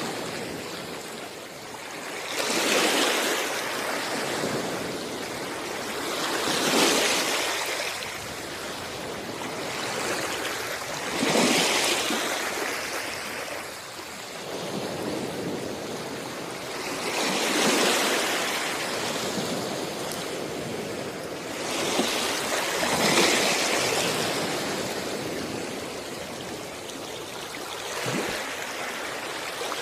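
Small sea waves washing onto a shore: a steady hiss of water that swells into a surge of breaking and running water every four to six seconds.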